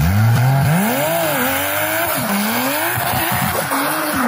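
Dodge Charger's engine revving up and down with the throttle as the car slides and spins its rear tyres on gravel, over a hiss of tyres and loose stones.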